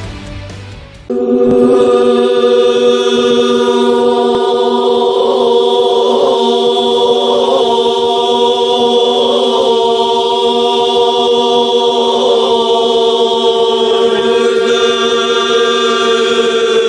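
Emergency-alert attention tone: a loud, steady drone of several held pitches sounding together like a chord. It cuts in sharply about a second in, after the end of the previous sound, and holds unchanged.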